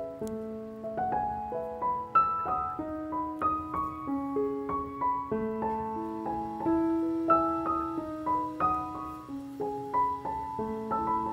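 Background piano music: a melody of single notes and chords played at an even pace.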